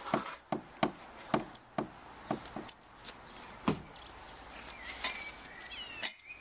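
A run of sharp knocks or taps, about two to three a second for the first few seconds, then a few scattered ones.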